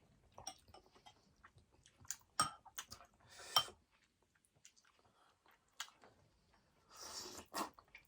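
A person chewing food close to the microphone, with soft wet mouth clicks and two louder noisy bursts, about three and a half seconds in and again near seven seconds.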